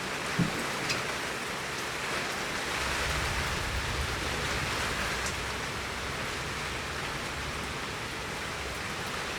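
Heavy rain falling steadily on a garden, a dense even hiss with a few separate drop ticks.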